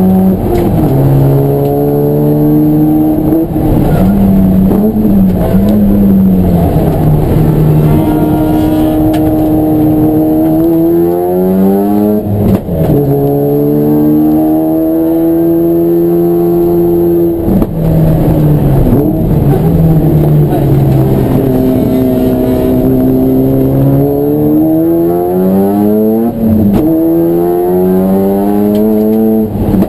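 A race car's engine running hard without a break, its pitch repeatedly climbing under acceleration and sinking as it slows. A few abrupt breaks in the pitch come as it shifts gear or lifts off.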